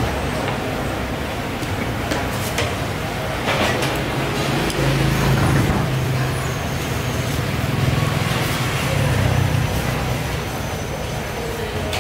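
Steady low rumble of engines in passing road traffic, with scattered sharp clinks and knocks of metal kitchen utensils.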